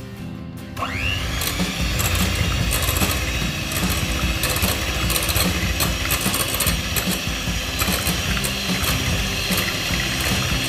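Electric hand mixer switched on about a second in, its motor whining up to speed and then running steadily as its beaters whip Nutella and cream in a glass bowl.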